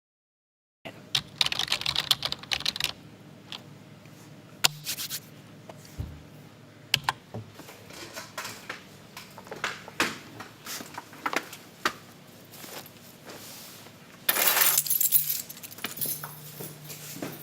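Irregular small clicks, taps and rustles, with a louder rustling burst near the end, over a faint low hum.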